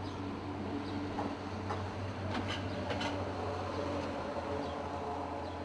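A steady low hum with a few faint short tones and light clicks.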